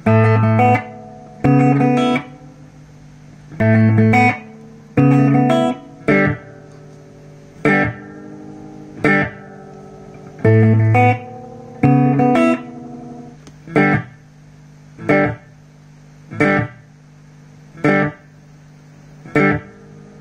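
Electric guitar played through a 1984 Toa EMX-10 echo mixer: short chords and notes struck about every second and a half, each cut off sharply. In the middle some of the tones bend in pitch.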